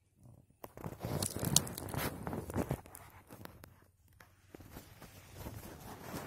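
Dry crunching and rustling of forest-floor litter such as pine needles and cones. The loudest stretch starts just under a second in and lasts about two seconds; the sound dies down, then softer crackling picks up again in the second half.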